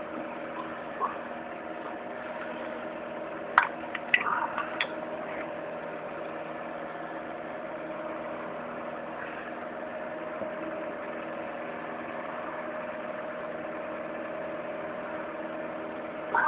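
Small electric fan heater running with a steady hum, with a few short clicks and taps of a phone battery being handled at about three and a half to five seconds in.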